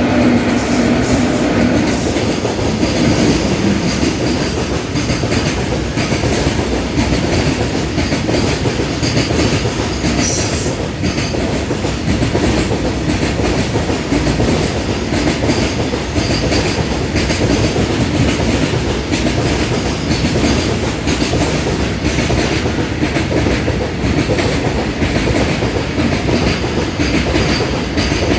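Mumbai suburban local train running at speed, with a steady rumble and the clickety-clack of wheels over rail joints.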